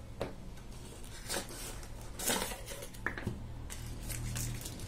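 A small cardboard product box being opened and its folded cardboard insert pulled out: a few short taps, scrapes and rustles of card, heard over a low steady hum.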